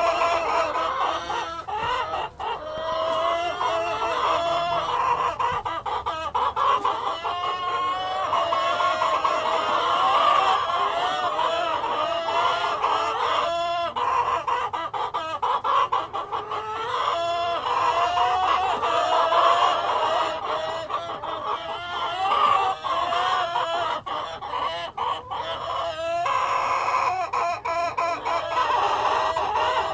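A flock of domestic hens clucking and calling continuously, many voices overlapping, with a rooster crowing among them.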